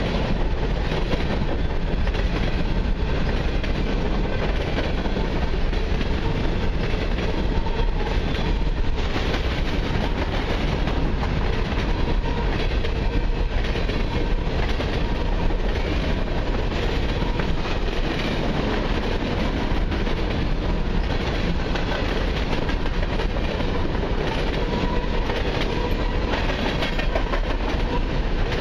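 Covered hopper cars of a long freight train rolling past close by: a steady rumble of steel wheels on rail, with clickety-clack as wheels cross rail joints.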